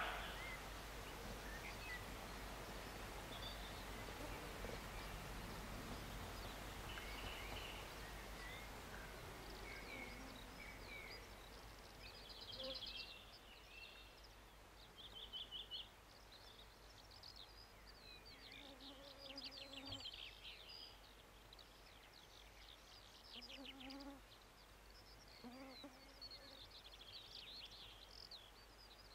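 The tail end of a roe deer's bark right at the start, then quiet open-country ambience with a faint steady hiss. From about twelve seconds in, small birds chirp and twitter in short high bursts.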